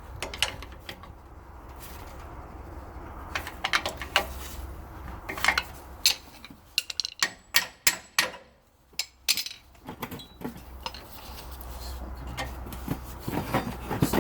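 Metal tapping on a truck's rear brake caliper to knock it loose: scattered sharp metallic clinks, then a quick run of about eight loud knocks in the middle, and a few more near the end.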